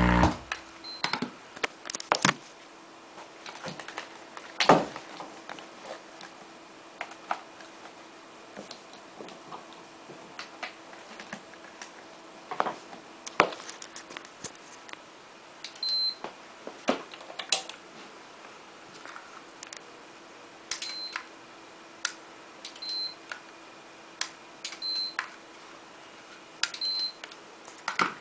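Handling clicks and knocks, with short high electronic beeps from a digital timer's buttons every few seconds in the second half.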